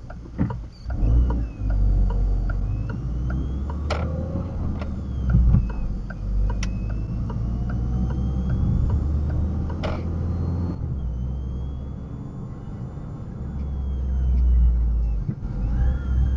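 Low, steady engine and road rumble of a car heard from inside the cabin through a dashcam microphone. Three sharp clicks are spread through it, along with faint, regular small ticks.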